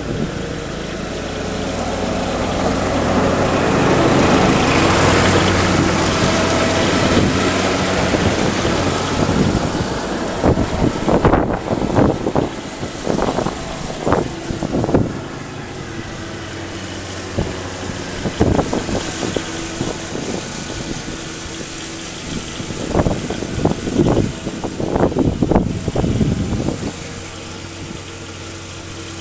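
Riding lawn mower engine running steadily, loudest in the first few seconds and then lower as the mower moves off. Through the middle and later part there is a run of short, irregular noises.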